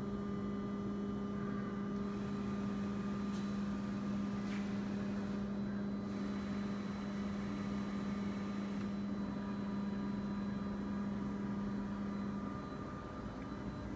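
KUKA KR16 industrial robot arm and DKP-400 two-axis positioner moving under power: a steady electric hum of the servo drives with a thin high whine above it. The low hum stops shortly before the end.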